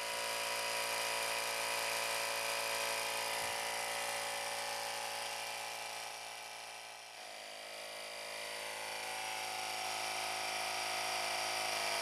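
Tomcat Mini-Air portable 12-volt tyre compressor running steadily, its small motor and pump whirring as it inflates a punctured tyre nearing 20 psi. The sound dips and shifts in pitch about seven seconds in, then picks up again.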